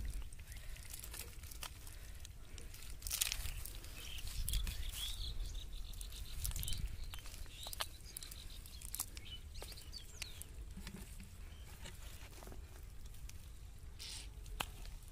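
Hands working a wet, mud-caked cast net on grass: intermittent rustling and crackling of the mesh and mud as a fish is picked out of it, with a few faint high chirps in the background.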